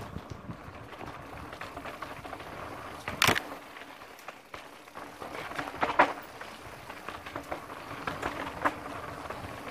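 Mountain bike descending a dirt trail: tyres running over dirt and stones with the chain and frame rattling, and sharp knocks over bumps, the loudest about three seconds in and about six seconds in.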